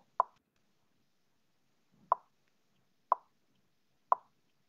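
Four short pitched pops from a computer notification alert, the last three about a second apart.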